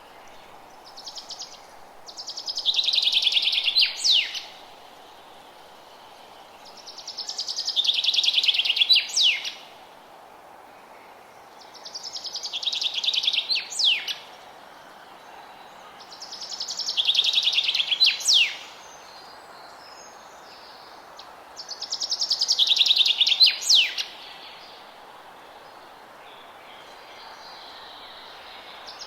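A songbird singing the same phrase five times, about every five seconds: each is a rapid high trill lasting two to three seconds and ending in a quick, sharp down-slurred note. A steady low hiss of forest ambience lies underneath.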